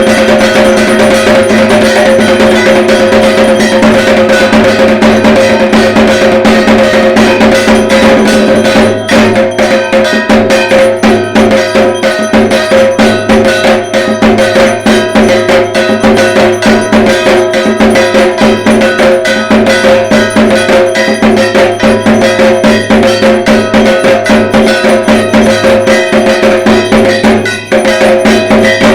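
Dhak drumming in a fast, continuous rhythm, with a ringing, cowbell-like metallic beat over it. From about nine seconds in the strokes stand out more separately, and just before the end there is a brief break.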